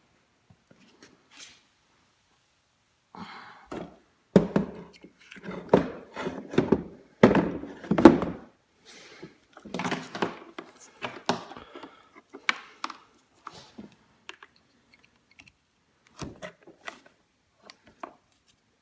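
Knocks, thunks and clatter from hands handling parts on a kids' electric ATV. It is busiest and loudest about four to eight seconds in, then thins to a few scattered clicks.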